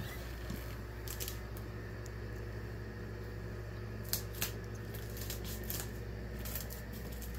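Steady low hum, with scattered light clicks and two sharper ticks about four seconds in.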